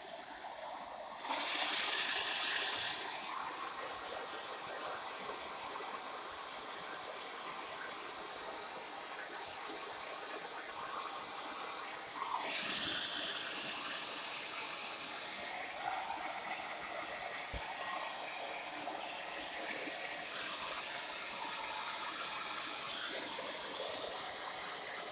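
A LEBEN hair dryer on its first run, blowing with a steady airy hiss that gets louder twice for a second or two, near the start and about halfway through.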